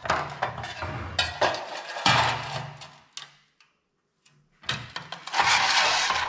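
Sheet-metal patch panel pieces being handled and positioned on a steel welding layout table: irregular knocks, clanks and scrapes, a short pause, then a longer scraping rush near the end.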